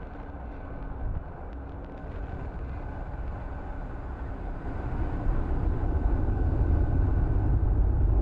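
Falcon 9 first stage's nine Merlin engines during ascent: a deep, rough rocket roar that grows louder about five seconds in.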